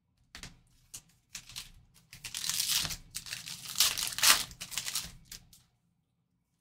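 Foil trading-card pack wrapper being torn open and crinkled in the hands, in irregular rustling bursts that stop abruptly about a second before the end.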